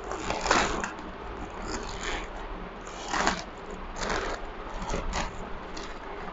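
Paper and plastic food wrapping crinkling and rustling in irregular bursts as it is peeled open by hand from a shawarma roll.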